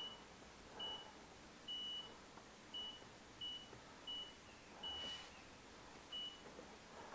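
LG F2WT208S0E washing machine's control panel beeping as its program settings are stepped through: eight short, high beeps at uneven intervals, two of them a little longer. Each beep confirms a button press or a turn of the program dial.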